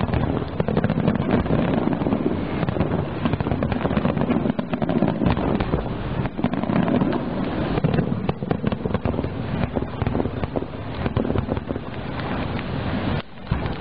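Aerial firework shells bursting in a dense, continuous barrage of booms, the finale of a fireworks display, with a brief lull shortly before the end.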